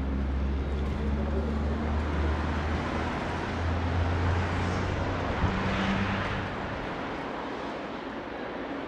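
Motor vehicle on a city street: a low engine hum, then tyre and road noise swelling to a peak about six seconds in as it passes and fading soon after.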